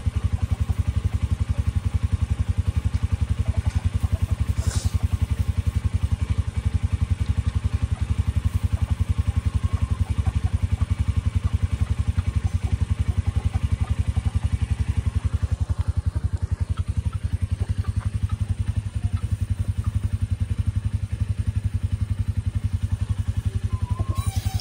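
An engine running steadily at a constant speed, a low, even pulsing that does not change.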